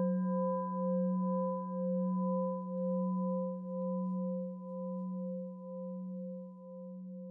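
Singing bowl ringing after a single strike, its tone pulsing with a slow wobble and gradually fading away.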